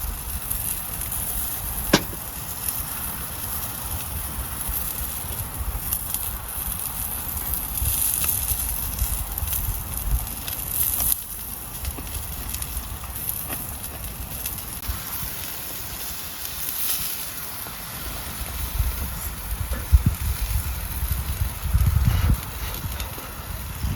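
Campfire crackling and hissing steadily, with a few sharp pops, the clearest about two seconds in and near the end. Uneven low rumbling from wind on the microphone runs under it.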